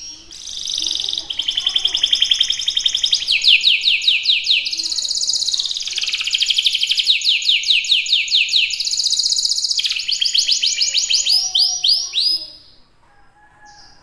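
Domestic canary singing a long song of rapid trills: fast runs of quick downward-sweeping notes, the pattern changing every second or two. The song stops near the end.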